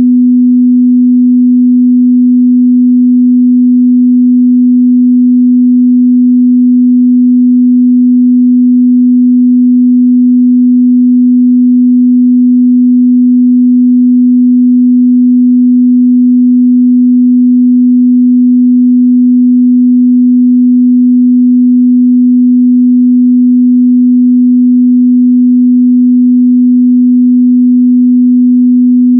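A steady, unbroken 248 Hz sine-wave test tone, a single pure pitch in the mid-bass, held at a constant loud level.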